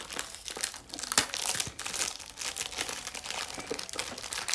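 Crinkly rustling with many small clicks and taps, as items are handled.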